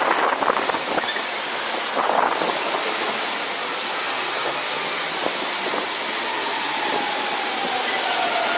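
Shanghai Maglev train running along its elevated guideway, a steady rushing noise that grows louder as it approaches. Near the end a whine sets in and slides down in pitch as the train draws past.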